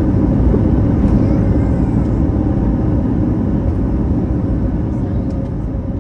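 A steady, loud low rumble of vehicle noise with a faint steady hum over it, easing off slowly toward the end.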